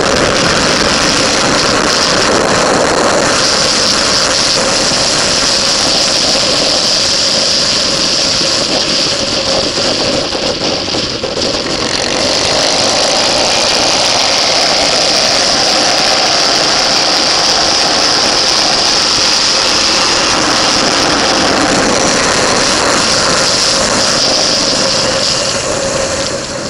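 Motorcycle engine running hard at track speed with wind rushing over the bike-mounted camera's microphone; the engine eases briefly around the middle, then pulls again, and falls away right at the end.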